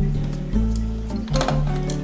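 Background music: a light tune over a bass line that changes note every half second to second.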